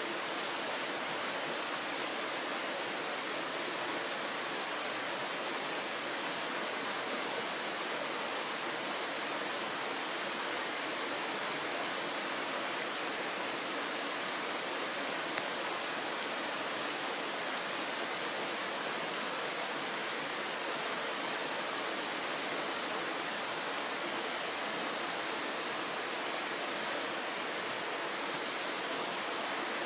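Shallow mountain stream rushing steadily over stones and small riffles, an even, unbroken water noise. A single short click about halfway through.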